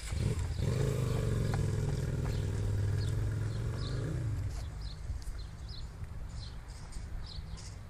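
A motor vehicle's engine running close by: a steady low hum that swells in just after the start, holds for about four seconds, then fades away.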